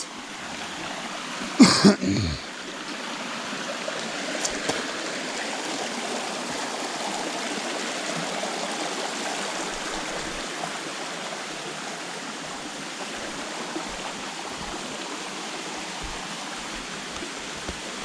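Stream running steadily, with one short, loud noise about two seconds in.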